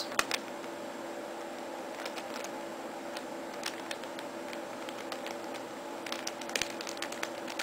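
Plastic Square-1 puzzle being turned and sliced by hand: scattered sharp clicks and clacks of the layers snapping into place, several close together about six seconds in, over a faint steady hum.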